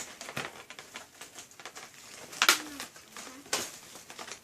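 Stiff plastic packaging being worked and pulled at by hand: crinkling and small clicks, with a sharp crackle about halfway through followed by a short creak, and another snap soon after.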